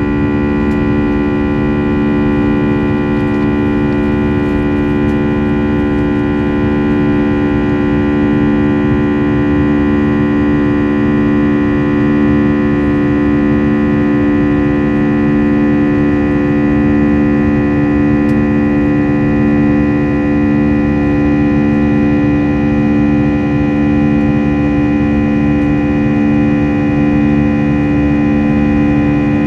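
Airbus A320 cabin noise in flight: the steady rush of airflow with the engines' constant droning hum, a stack of steady tones over a low rumble.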